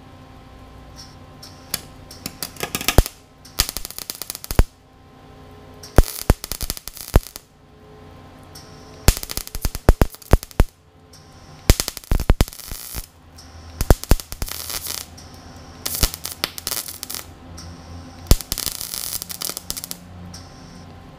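Craftsman 110 wire-feed welder on its lowest setting, stitch-welding pinholes in a rusty windshield channel. About eight short crackling bursts of a second or so each, with brief pauses between them.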